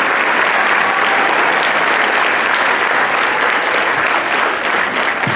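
Large audience applauding, a dense steady clapping that begins to thin out near the end.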